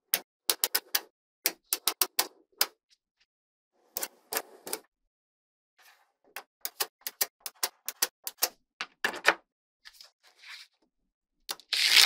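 Small magnetic balls clicking as they snap onto one another, in quick runs of sharp clicks broken by short pauses. About nine seconds in and again near the end comes a louder rattle of many balls at once.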